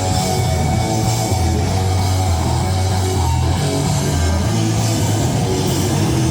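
Hardcore punk band playing live, with loud distorted electric guitar over heavy low bass notes, in a muddy, poorly balanced recording.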